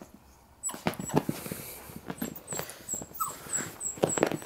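Eight-week-old beagle puppy giving a short, rising whimper about three seconds in, among scattered light knocks and scuffs.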